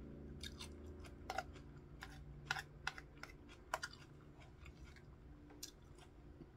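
Close-up chewing of a chicken ranch salad with iceberg lettuce: wet crunching and mouth clicks, with a few sharper crunches between about one and four seconds in.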